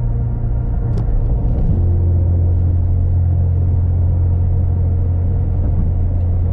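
Car driving, heard from inside the cabin: a steady low engine and road drone that steps down slightly in pitch a little under two seconds in, with a faint click about a second in.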